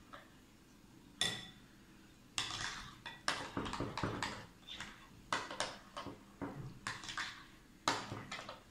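A spoon stirring and scraping a thick hung-curd and cream-cheese mixture in a glass bowl: a ringing clink of spoon on glass about a second in, then a run of short, uneven scraping strokes against the bowl.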